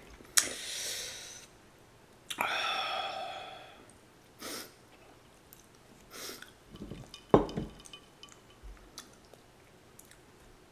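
Close-miked eating sounds: chewing and a couple of longer breathy, noisy stretches. Sharp knocks of a glass on the table come about half a second in, at about two seconds, and at about seven seconds, with small ticks in between.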